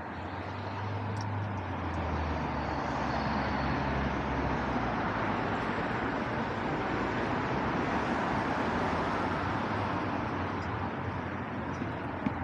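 Road traffic noise from a passing vehicle, swelling over the first couple of seconds and holding, with a low engine hum in the first few seconds. A single sharp click near the end.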